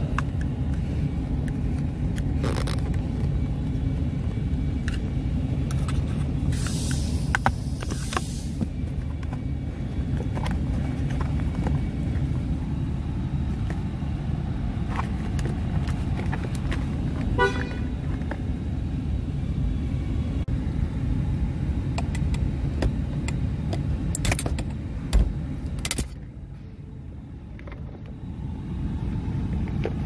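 Clicks and plastic rattles from handling the USB/auxiliary audio receptacle module and its wiring connector in the center console, over a steady low rumble. A short hiss comes about a third of the way in, a quick run of ticks near the middle, and the rumble drops away briefly near the end.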